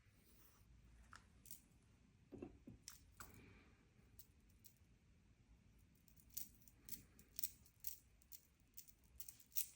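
Near silence, with a few faint small clicks and taps from handling modelling paste and small tools on a work surface.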